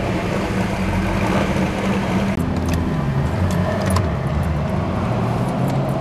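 Car engines running at low speed, a steady low rumble heard from inside a car, with a few light clicks in the second half.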